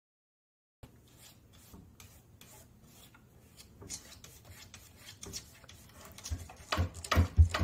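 A cat clawing at a kitchen cupboard door, its claws scraping the wood in quick repeated strokes that start faint and grow louder. Near the end the door knocks several times in quick succession as the cat pulls at it.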